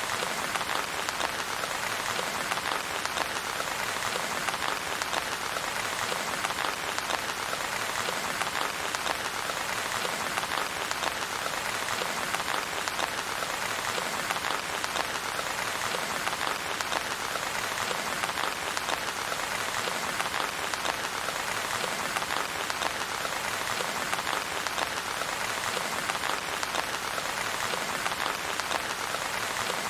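Steady rain falling on a surface, a dense, even patter that does not let up.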